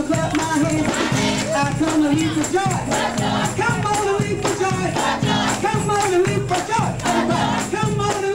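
Lively gospel music with voices singing and people clapping along on the beat.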